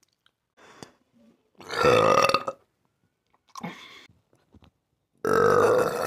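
A woman burping loudly several times: a long burp about two seconds in, a shorter, weaker one near four seconds, and another loud one starting near the end.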